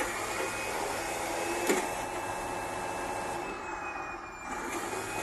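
1/10 scale RC wrecker truck's electric motor and geared drivetrain whirring steadily, with one sharp click a little under two seconds in.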